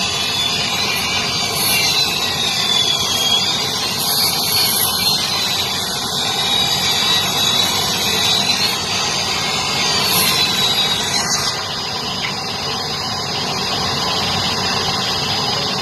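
Large circular saw running and cutting wooden boards, with a steady machine noise under it. A high whine sinks and rises several times, then holds steady about eleven seconds in.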